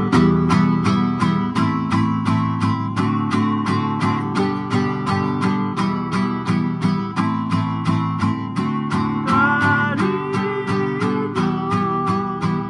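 Nylon-string classical guitar strummed in a steady rhythm, about four strokes a second, playing chords in the key of G.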